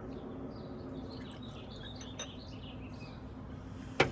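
Faint short high chirps over a steady low hum, with one sharp, loud knock near the end.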